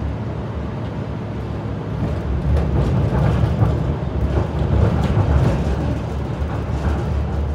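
Melbourne tram running, heard from inside the car: a steady low rumble of motors and steel wheels on the rails that grows louder about two seconds in, with faint scattered clicks and rattles.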